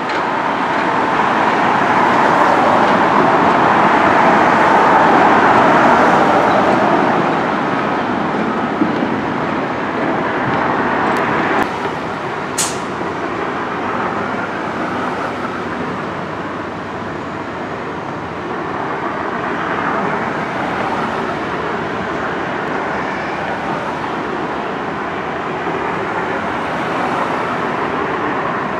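Road traffic noise, a steady rush that swells as a vehicle passes over the first several seconds, with a brief sharp click a little before halfway.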